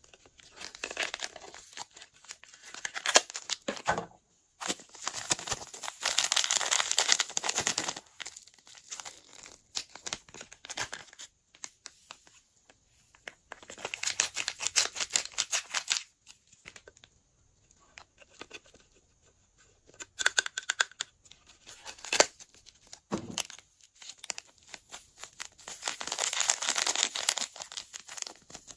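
Glossy slime being mixed and stretched by hand. It gives bursts of dense crackling clicks, each a few seconds long, with short pauses between.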